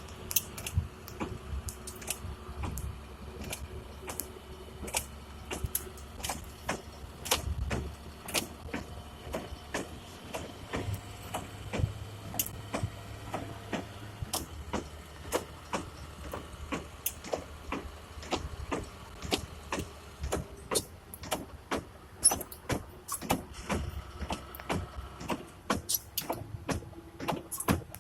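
Delivery truck driving, heard from inside the cab: a low engine rumble with frequent, irregular clicks and rattles.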